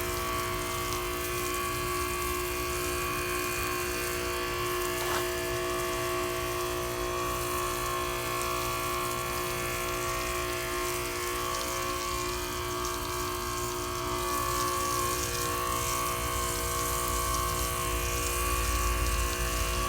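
Ryobi 2300 psi electric pressure washer running, its motor and pump giving a steady whine at a constant pitch over the hiss of water spraying from a turbo nozzle.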